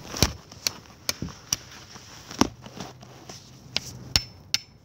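About eight sharp knocks at uneven intervals, the loudest about two and a half seconds in.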